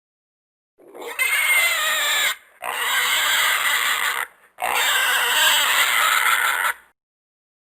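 Three long, loud animal cries, each about one and a half to two seconds, with short breaks between them.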